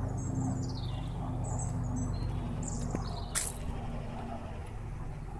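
Small birds chirping and twittering in short high calls, some falling in pitch, over a steady low hum. There is one short sharp sound about three and a half seconds in.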